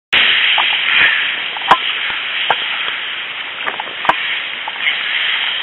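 Steady rushing wind noise on the camera microphone, with a few sharp knocks or clicks, the loudest a little under two seconds in.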